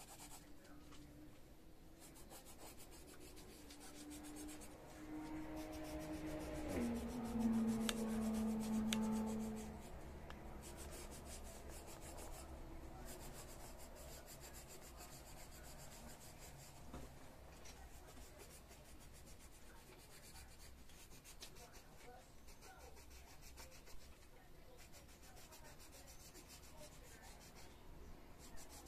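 Coloured pencil scratching in quick back-and-forth strokes across a colouring-book page while a child shades in green. From about four to ten seconds in, a louder low hum rises over it and drops in pitch partway through.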